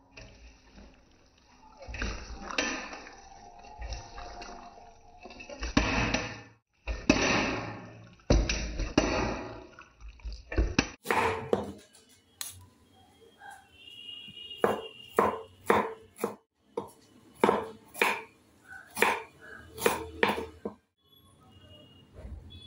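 Hands squishing and turning raw chicken pieces with spice powder in a steel bowl, a wet, irregular sound. About eleven seconds in the sound changes to a run of sharp knocks, about one or two a second, until shortly before the end.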